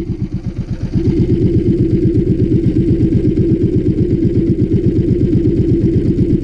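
Small boat engine running at trolling speed, its exhaust pulsing rapidly and evenly. It is a little quieter for about the first second, then steady and louder again.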